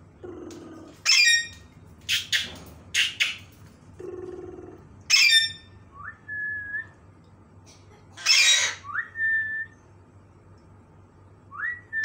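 Alexandrine parakeets squawking: about five loud, harsh screeches, with three short whistles that rise and then hold one steady note.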